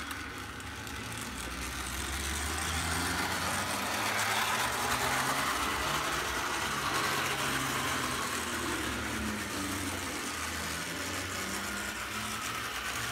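HO scale model locomotive running along the track under DC track power: a steady electric-motor hum that grows louder over the first few seconds and then holds.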